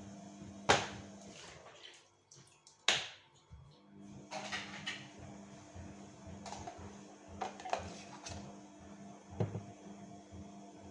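Household handling noises, likely dishes or utensils: a few sharp knocks or clinks, loudest about a second in and just before three seconds, with lighter ones later. Under them runs a steady appliance hum that drops out for a couple of seconds and then returns.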